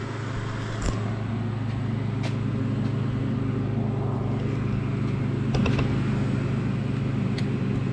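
Steady low mechanical hum of running machine-shop equipment, with a few light clicks.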